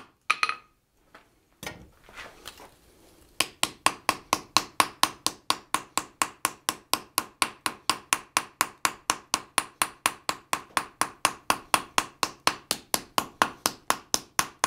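Ball peen hammer striking a 1/8-inch sheet-steel butterfly on an anvil to peen a hammered texture into it. After a couple of single taps, a fast, even run of blows starts about three and a half seconds in, roughly five a second, each with a short metallic ring.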